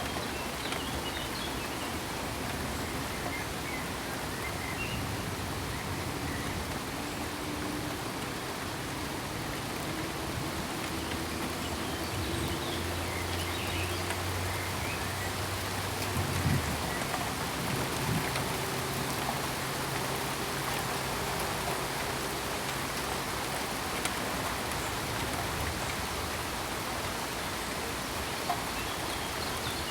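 Steady rain falling, an even hiss. A faint low hum comes in about a third of the way through and fades out well before the end, and a couple of brief knocks sound near the middle.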